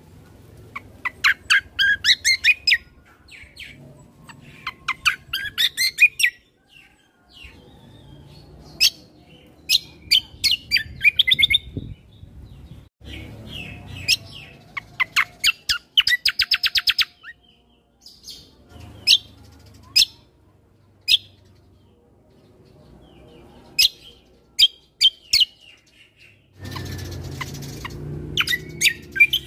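Kecial kombo (cucak kombo) songbird singing in short, loud bursts of rapid chirps and trills with pauses between, including one fast, even trill midway. A burst of rustling noise comes in near the end.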